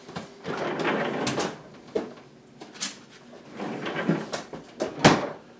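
A freezer opened and shut while a chilled martini glass is taken out: rustling and rattling, then several short clicks and knocks, the sharpest about five seconds in.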